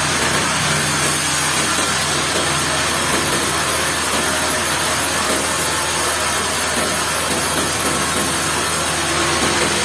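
Sawmill machinery running steadily: a low engine hum under a loud, even hiss that holds without pause.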